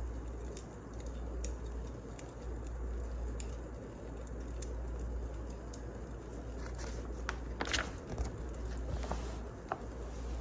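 Wood fire crackling, with scattered sharp pops and a quick run of snaps about three-quarters of the way through, over a steady low hum.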